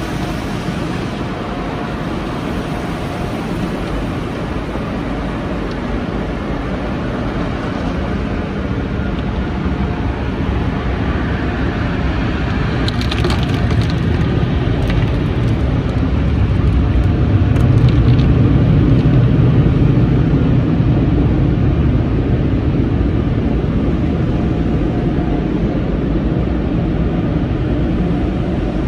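Automatic tunnel car wash heard from inside the car: water spraying and running over the windshield, then rotating cloth-strip brushes scrubbing the body. It is a steady wash noise with a low rumble that builds to its loudest about two-thirds through, with a few sharp clicks in the middle.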